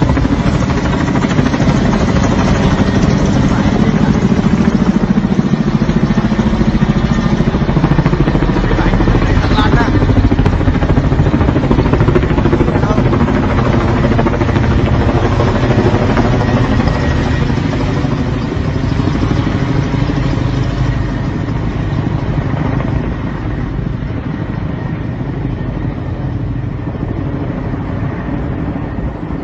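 Loud, steady street noise of vehicle engines running, with voices mixed in. It eases a little in the last few seconds.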